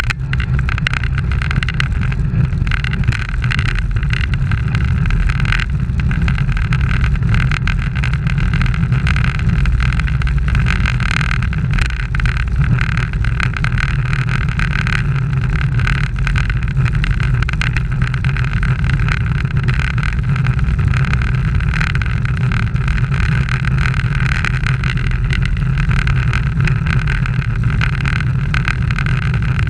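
Steady low rumble of road racing bicycles rolling at speed on asphalt in a pack, road and wind noise picked up by a camera mounted on a bike, unbroken throughout.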